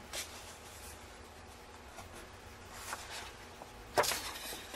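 Paper rustling as the pages of a large paper sales brochure are handled and turned by hand: a few soft brushes, then a louder rustle about four seconds in.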